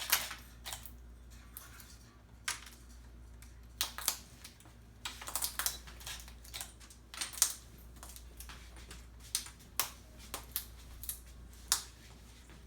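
Moluccan cockatoo chewing and breaking apart a wooden and paper toy with its beak: irregular sharp snaps and crunches, sometimes several in quick succession.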